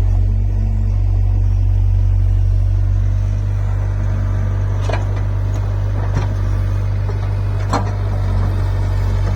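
Excavator engine running steadily with a deep, even drone, with three short sharp knocks partway through.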